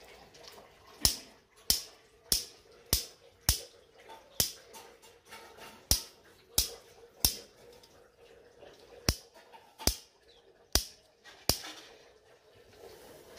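A series of about thirteen sharp clicks or slaps made by a person, irregularly spaced half a second to two seconds apart, over faint background noise.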